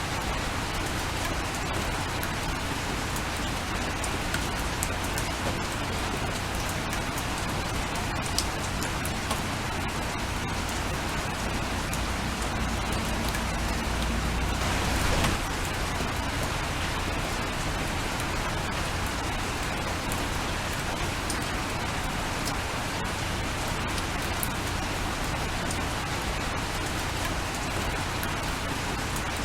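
Steady rain falling, with scattered sharp ticks of individual drops. About halfway through, a brief louder rush swells up and then cuts off suddenly.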